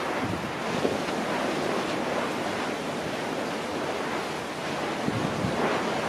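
Steady rush of wind and sea water, with wind buffeting the microphone.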